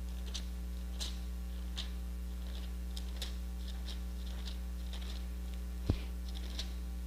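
Faint rustles and soft ticks of Bible pages being turned by hand over a steady low electrical hum from the microphone, with one sharper knock about six seconds in.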